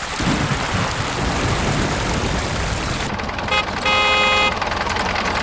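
Small engine running steadily, with a vehicle horn sounding about three and a half seconds in: a couple of quick toots, then one held honk of about half a second.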